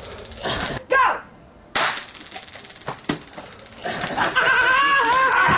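A taser crackling in a fast, even train of sharp clicks starting about two seconds in, with a person's strained, wavering yell over it near the end.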